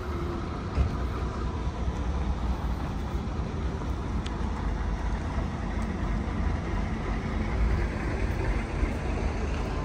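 Steady engine and road noise heard on board a Leyland Olympian double-decker coach on the move, mostly a low, even rumble.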